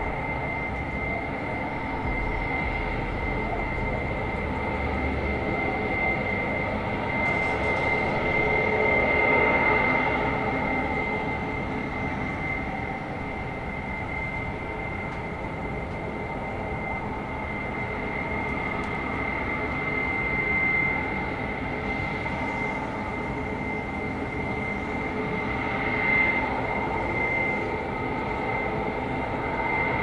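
Steady mechanical rumble with a constant high-pitched whine and a lower hum running through it, swelling a little in loudness at times but never stopping.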